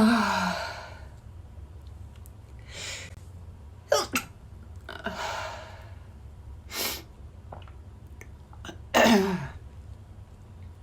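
A person sneezing repeatedly, with sharp breaths between sneezes. Loud sneezes come at the start and about nine seconds in, each a short voiced catch falling in pitch, then a burst of air. Smaller sneezes and breaths come in between.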